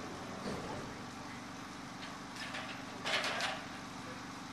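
Steady low engine hum throughout, with a brief metallic clatter about three seconds in as an aluminium extension ladder is moved and set against the roof edge.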